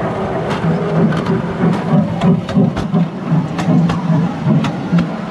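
Ride-on Thomas the Tank Engine train rolling along its track directly over the camera, with a pulsing low rumble and repeated sharp clicks as its wheels cross the bolted rail joints.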